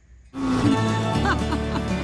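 Background music starting abruptly about a third of a second in, after a moment of near silence.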